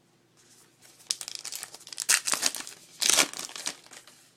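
Plastic wrapper of a trading-card pack crinkling and tearing as it is opened by hand: a run of crackly rustles, loudest about three seconds in.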